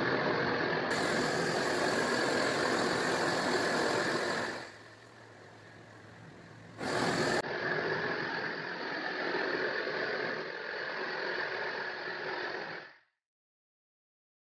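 Homemade long-barrel gas blowtorch burning, its flame rushing steadily. About four and a half seconds in it drops to a softer hiss for about two seconds, then comes back up full. It cuts off abruptly about a second and a half before the end.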